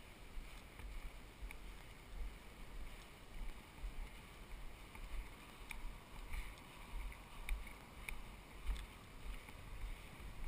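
Wind on a helmet-mounted camera microphone, a low rumble rising and falling about once a second while walking, with faint ticks and rustles from a bundled paraglider wing carried against the camera.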